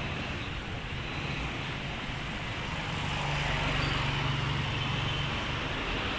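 Steady outdoor vehicle noise with a low hum that swells from about three seconds in to about five seconds in, then eases.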